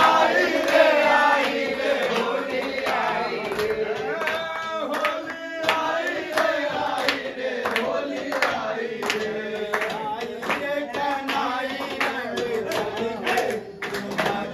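A group of men singing a Holi folk song together, with a steady clapped beat and a steel plate beaten as percussion.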